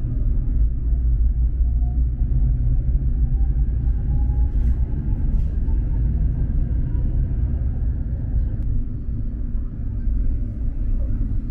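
Tram in motion, heard from inside the car: a steady low rumble of running gear on the rails, with a faint whine rising slowly in pitch over the first few seconds. Two short sharp clicks come about four and a half and five and a half seconds in.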